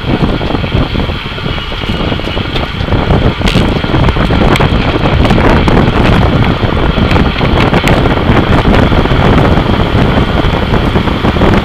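Loud wind buffeting the microphone of an action camera riding in a road-race bunch, with a few sharp clicks.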